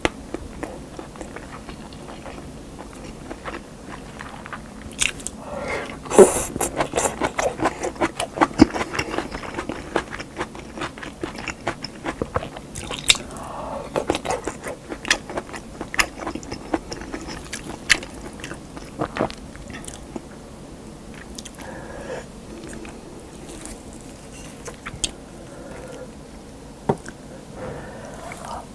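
Close-miked wet chewing and lip-smacking of a person eating stewed kimchi and rice. The smacks come in rapid clusters, busiest about six to ten seconds in, and grow sparser in the second half.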